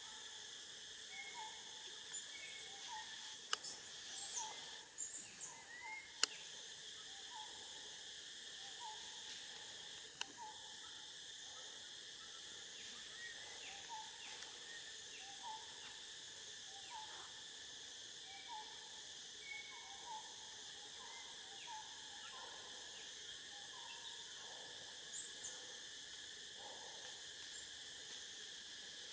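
Steady chorus of forest insects, with a bird repeating a short, low note about once a second. A few sharp, high-pitched chirps or squeaks stand out in the first few seconds and once more near the end.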